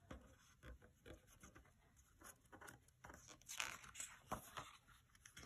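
Near silence with faint scattered ticks, then, about three and a half seconds in, a brief cluster of soft paper rustles and taps as a picture book's page is handled and turned.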